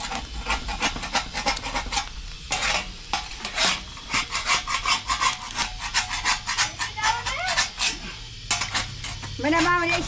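Metal spatula scraping and tapping against a round iron griddle as an egg fries on it over a wood fire, a rapid run of scrapes and clicks. A short pitched call sounds near the end.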